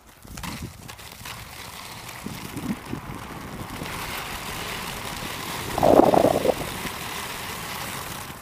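Powerslide Next inline skate wheels rolling over a dirt and gravel trail: a steady rough rolling noise with wind on the microphone, and a brief louder burst about six seconds in.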